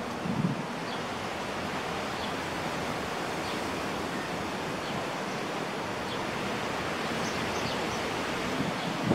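Steady outdoor wind noise, an even hiss, with faint short high chirps every second or so.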